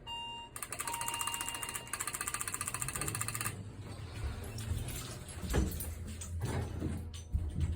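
Elevator sounds: a short electronic beep, then a rapid pulsing buzz that stops about three and a half seconds in. After it a steady low hum continues, with a few knocks near the end.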